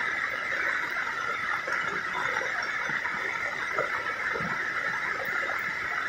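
A steady, unbroken, high-pitched chorus of calling animals, dense and even throughout.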